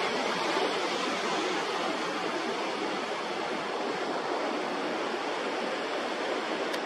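Sea surf washing and breaking against shoreline rocks: a steady rush with no let-up.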